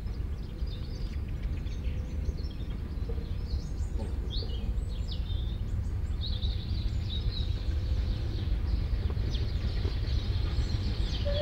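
Wild birds chirping and singing over a steady low rumble that grows gradually louder.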